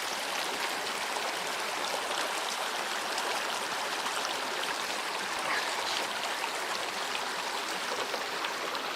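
Mountain creek rushing over rocks and small waterfalls: a steady, even rush of water.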